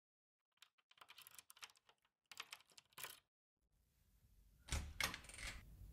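Faint light clicking and rattling of keys working a front-door lock, then the door opening with a couple of louder knocks about five seconds in.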